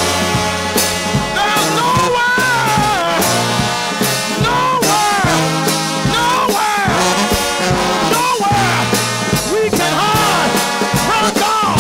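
Trombone shout band playing gospel: several trombones swooping through sliding, bending notes over steady low bass notes and regular percussion hits.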